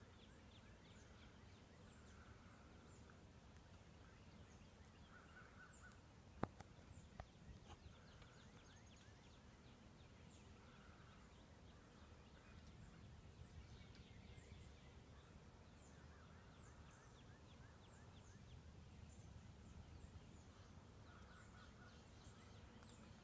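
Near silence of faint outdoor ambience with scattered distant bird chirps, and a sharp click about six seconds in, followed by a few softer clicks.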